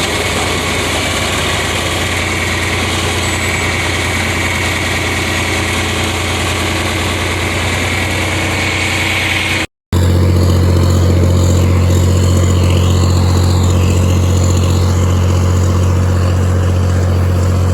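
Tractor engine running steadily. It breaks off for an instant just under ten seconds in, then carries on somewhat louder.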